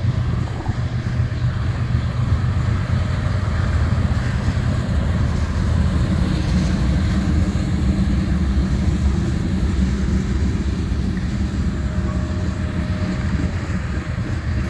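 BNSF mixed freight train rolling past, a steady low rumble that runs without a break.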